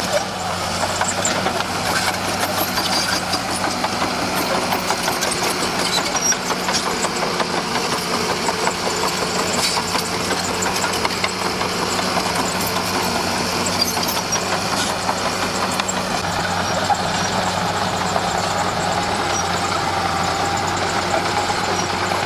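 Komatsu D41P crawler bulldozer's diesel engine running steadily under work, with rapid metallic clatter throughout. A higher whine joins in over the last few seconds.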